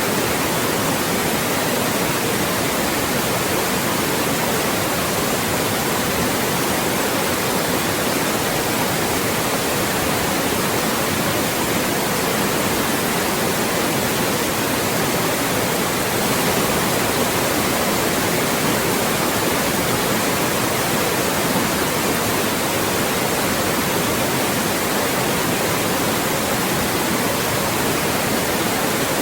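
Loud, steady synthetic white noise: an even, unchanging hiss spread across the whole range of pitch, used as a speech-masking sound.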